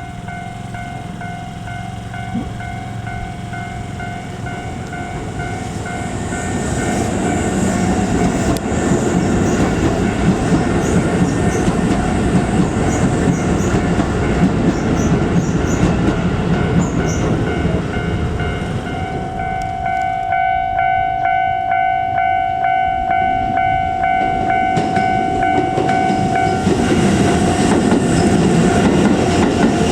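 A Japanese level-crossing alarm dinging about twice a second while a Keisei Kanamachi Line commuter train passes, its rumble and wheel clatter growing louder from about six seconds in. Past the middle a louder steady tone sounds for several seconds and then cuts off suddenly.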